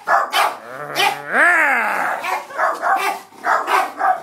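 Terriers barking in rapid repeated barks, two to three a second. About a second in, one long whining cry rises and falls.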